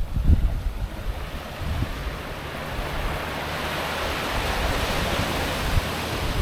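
Ocean surf washing up a beach, its hiss swelling about halfway through as a wave runs in, with wind gusting on the microphone in the first couple of seconds.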